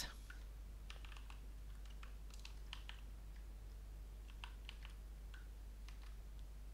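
Computer keyboard being typed on: faint, irregular keystrokes as a line of code is entered.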